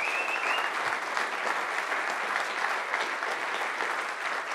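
Audience applauding steadily at the close of a talk.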